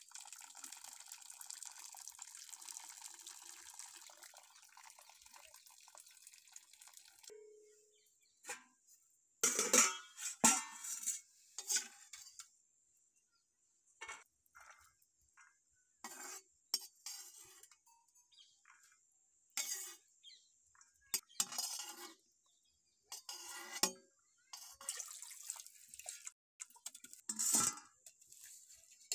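Hiss of water steaming in a kadhai for about seven seconds, then a steel ladle scraping a metal kadhai and rattling dry grains in short separate strokes with quiet gaps between them.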